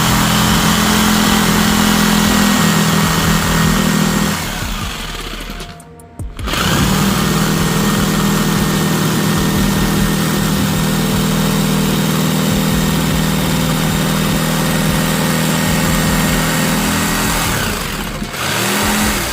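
A steady-running electric motor-driven machine with a fixed-pitch hum and hiss. It shuts off about four seconds in, starts again about two seconds later and runs evenly until it fades near the end.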